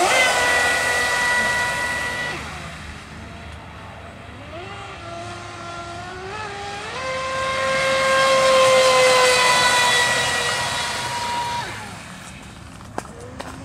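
Joysway Invincible Razor RC speedboat running fast on six-cell power: a high-pitched electric motor whine with a hiss of spray. Loud at first, it fades, steps up and down in pitch with the throttle, swells loud again and drops away near the end.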